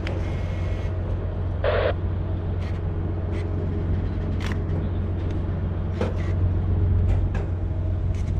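Steady low mechanical hum, with scattered faint clicks and a short hiss a little under two seconds in.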